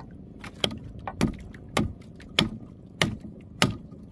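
A machete chopping into a marlin's tail, six sharp, evenly paced strikes at about one and a half a second, hacking the tail off the fish.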